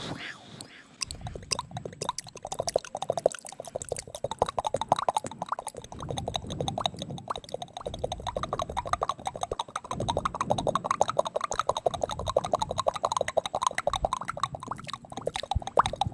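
Close-up wet mouth sounds: quick, dense clicking and smacking right at the microphone, the layered mouth-sound ASMR trigger.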